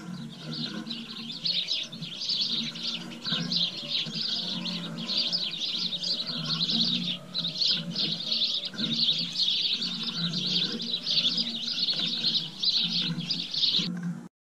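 A flock of Eurasian tree sparrows chirping continuously, many short overlapping chirps at once, cutting off just before the end.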